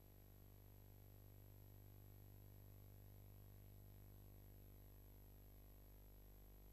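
Near silence: only a faint steady low hum with a thin high whine, no sound from the scene.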